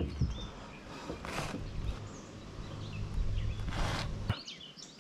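Birds chirping in short, scattered calls, with two brief noisy rushes about a second and about four seconds in, over a low rumble that stops just after four seconds.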